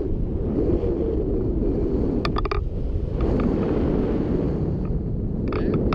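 Wind rushing over an action camera's microphone in flight under a paraglider: a steady low rush, with a few faint clicks about two seconds in and again near the end.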